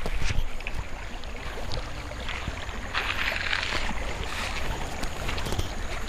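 Wind rumbling on the microphone with the soft rustle of footsteps on a grassy path as the person walks.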